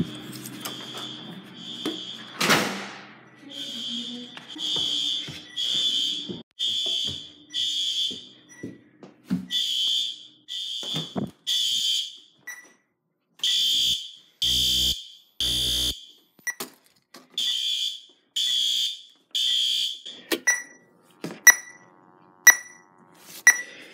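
Fire alarm horns sounding in groups of three high-pitched beeps with a pause between groups, a temporal-three evacuation pattern. About twenty seconds in the beeping stops and sharp clicks follow, about one a second.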